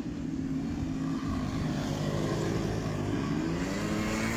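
Quad bike (ATV) engine running close by, its pitch dipping and rising as it is throttled off and on again.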